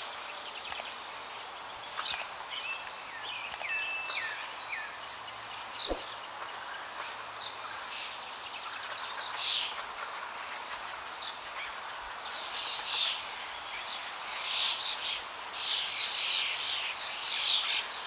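Wild birds chirping and calling over a steady outdoor hiss: many short, high chirps and whistles, growing busier in the second half.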